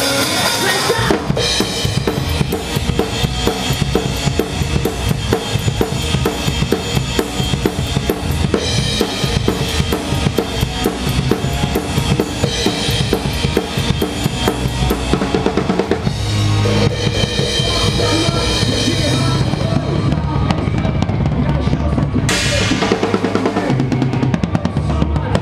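Rock band playing live, with the drum kit close and loudest: a fast run of kick, snare and cymbal hits over the steady sound of the rest of the band.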